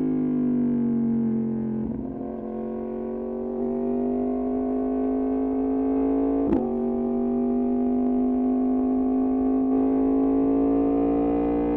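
Yamaha MT-10's crossplane inline-four through an Austin Racing exhaust on the move, its note dipping over the first couple of seconds and then climbing slowly and steadily. A short sharp crack comes about two seconds in and another about halfway.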